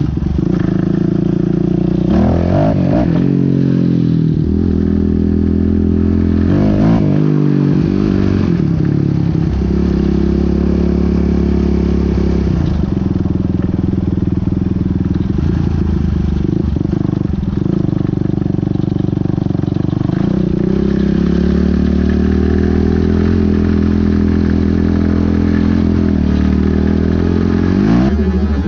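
Motorcycle engine running under way, its pitch swinging up and down twice in the first several seconds, then holding steady and climbing slowly over the last third as it speeds up.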